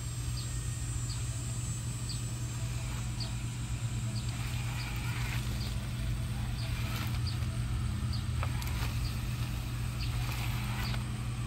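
LawnMaster OcuMow robot lawn mower running, a steady low electric hum from its motors as it drives and turns in the grass. Faint short high chirps repeat about once a second over it.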